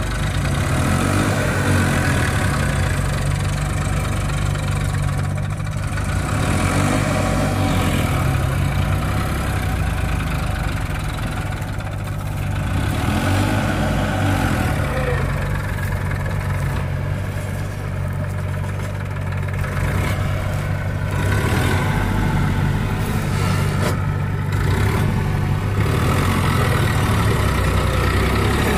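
Massey Ferguson 241 DI tractor's three-cylinder diesel engine running steadily under load as it pulls a trailer heaped with earth.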